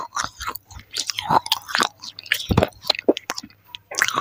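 Pieces of a broken baked-clay saucer being bitten and chewed right at a lavalier microphone: an irregular run of sharp, gritty crunches.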